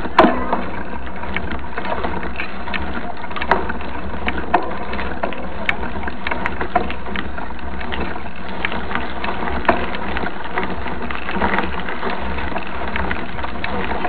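Mountain bike rolling along a dirt road, heard from on the bike: a steady rumbling hiss of tyres and wind, with irregular sharp clicks and rattles.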